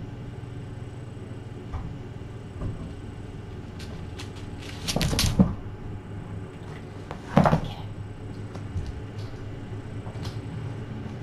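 A cat at play with a feather wand toy: two short bouts of scuffling and knocking, about two seconds apart, with a few light clicks, over a steady low hum.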